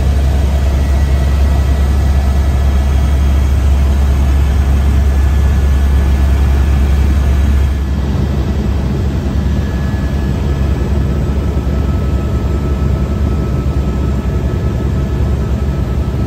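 Helicopter cabin noise in flight: a loud, steady drone of engine and rotor with a deep hum underneath. The deepest part of the hum eases slightly about halfway through.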